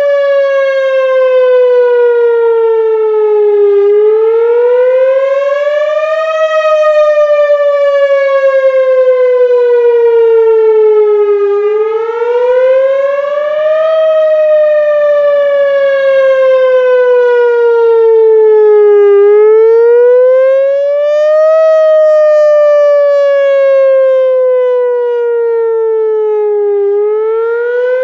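Whelen WPS-4000 electronic outdoor warning siren sounding the Wail signal: a loud, steady tone that slowly falls in pitch, then climbs back more quickly, in repeating cycles of about seven and a half seconds.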